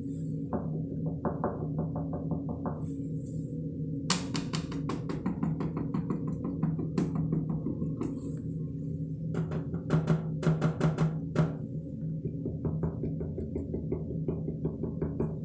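Quick runs of tapping on a hard object, several taps a second, stopping and starting again a few times, over steady background music.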